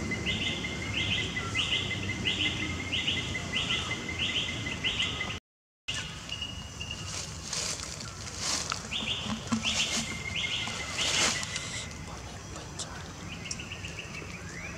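A bird calling in a regular series of short, high, rising notes, about seven in five seconds, then three more and a quick run of notes later, over a steady thin high tone. The sound cuts out completely for half a second about five seconds in, and there are scattered soft clicks and rustles.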